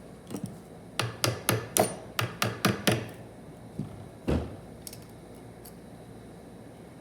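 A quick run of sharp knocks or taps on the TH400 transmission's parts during reassembly: about eight in two seconds, then two more single knocks a moment apart.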